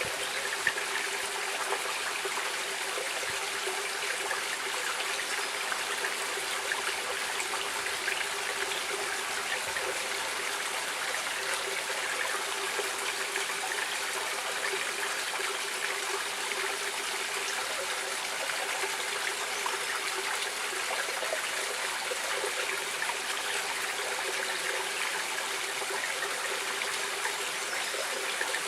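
Water of a stream running steadily, a constant rush with small splashes and trickles.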